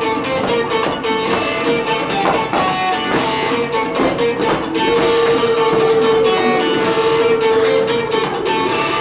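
Guitar music with plucked strings, and a long held note from about halfway through.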